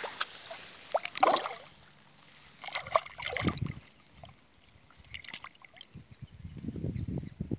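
Water sloshing and splashing in three short, irregular bouts: about a second in, around three seconds in, and near the end.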